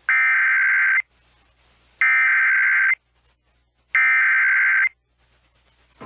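Emergency Alert System SAME header: three harsh one-second bursts of digital data tones, about a second apart, marking the start of an EAS alert broadcast.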